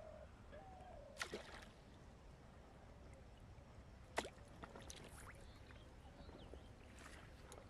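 Quiet pond-edge background with a few faint, short water splashes and clicks, the loudest about four seconds in, as a small fish is pulled from the pond on a hook-and-line fishing rod.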